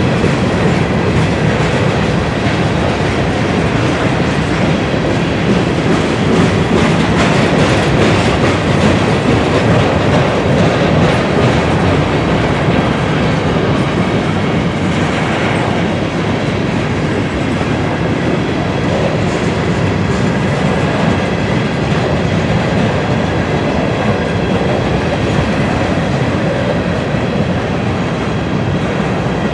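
Freight train of grain hopper cars rolling past close by: a steady rumble of wheels on rail with a constant rapid clicking over the rail joints.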